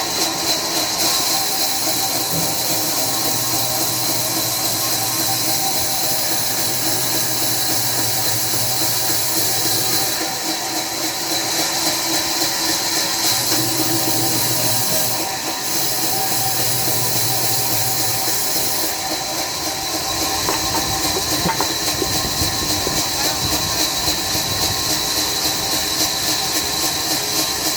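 Sawmill saw running through a log: a loud, steady, high hissing whine, with a low hum that comes and goes.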